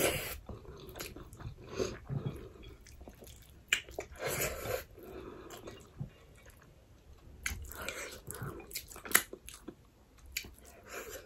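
Close-up mouth sounds of a person eating rice and dal by hand: chewing with many short wet clicks and smacks, coming irregularly.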